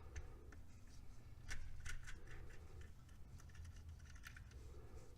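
Faint, scattered light clicks and scrapes of small parts and tools being handled, over a low steady hum.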